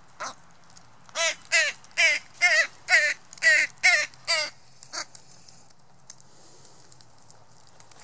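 Northwestern crow cawing: a fast run of about eight harsh caws, about two a second, each wavering in pitch, then one shorter caw a moment later.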